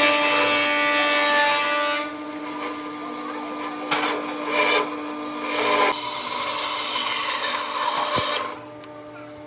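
A power tool working wood. It is loudest for about the first two seconds, then rises and falls in level, and stops about a second before the end.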